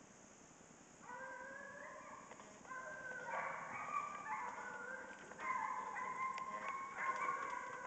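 A pack of deer hounds baying as they run a deer. Several long, overlapping calls at different pitches start about a second in.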